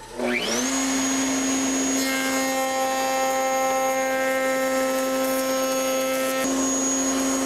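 Table-mounted router spinning up with a rising whine, then running at a steady pitch. From about two seconds in, its 22.5° lock miter groove cutter cuts the groove profile along the edge of a hardwood board fed past the fence. The sound changes again shortly before the end, as the cut finishes and the router runs on.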